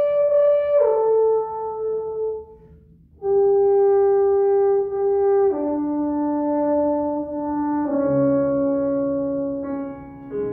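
French horn playing a slow melody in long held notes, with a short break for breath about two and a half seconds in.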